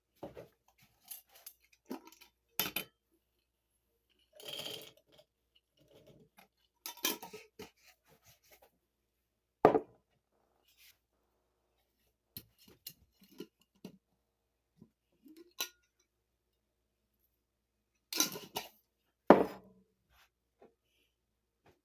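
Dishes and utensils being handled while tea is made: scattered clinks, taps and knocks, the loudest about ten seconds in and again near the end.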